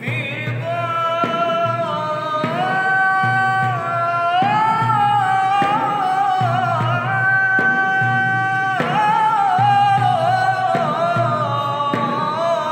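A solo male singer chanting an ibtihal, an Islamic devotional chant, unaccompanied by instruments. He holds long notes with melismatic ornaments and slides between them, over a low drone underneath.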